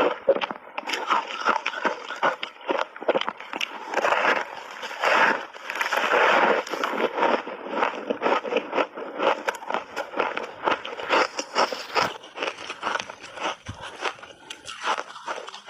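Crunchy layered ice being bitten and chewed close to the microphone: a dense run of crackling crunches, loudest between about four and seven seconds in.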